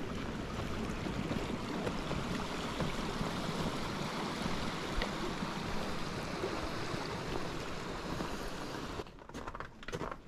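Steady rushing of a small mountain creek flowing open between snow banks. It cuts off about nine seconds in, leaving a few short crunching footsteps on snow.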